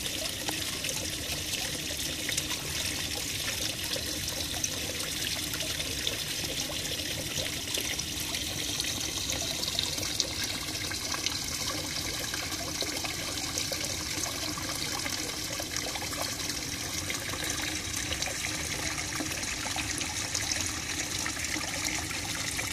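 Running water trickling steadily into a garden pond.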